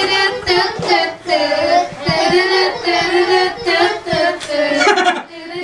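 A song with a high-pitched singing voice over music, playing as dance music for a TikTok dance.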